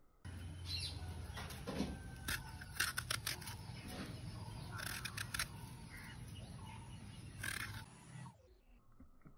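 Vegetables being prepared by hand over a steel plate: a run of sharp clicks and scrapes, thickest two to three seconds in and again about five seconds in, over a low hum. The sound sets in just after the start and cuts off about eight seconds in.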